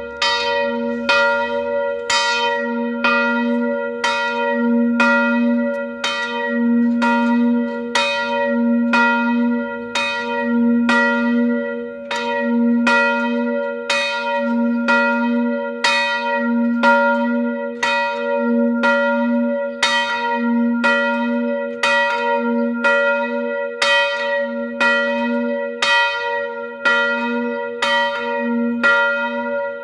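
Large bronze church bell, cast in 1972, swinging in full and tolling for its daily noon ringing: the clapper strikes about once a second, each stroke ringing on into the next over a low hum that swells and fades with every swing.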